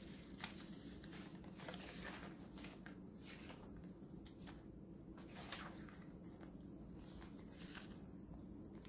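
Faint rustles and soft flaps of paper and card pages as a handmade junk journal is leafed through by hand, a string of short rustles over low room hum.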